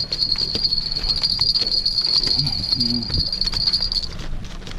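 An insect trilling in one steady, high-pitched note that cuts off about four seconds in, over a low rumble and scattered faint clicks.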